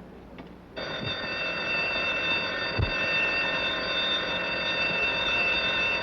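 An electric alarm bell starts ringing suddenly about a second in and keeps ringing steadily without a break, with two dull low knocks under it.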